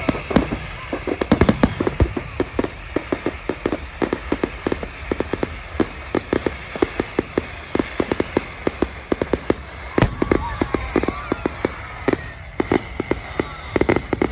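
Fireworks display: a rapid, continuous run of crackling cracks and bangs, with heavier bursts about a second and a half in and again about ten seconds in.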